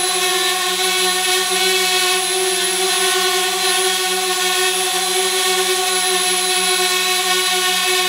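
DJI Spark quadcopter hovering, its propellers giving a steady, loud buzzing whine made of a stack of even tones, reading about 73 dB on a sound meter.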